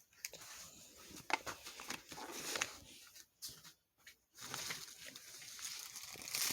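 Rustling and crinkling, as of plastic wrapping being handled, with scattered small clicks and two brief pauses in the middle.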